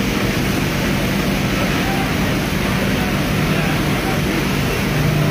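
Steady rushing hiss of fire hoses spraying water, over a low engine hum and the voices of a crowd.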